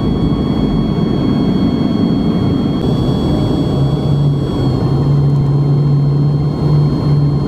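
Jet airliner engines heard from inside the cabin: a steady low rumble with a high, even fan whine.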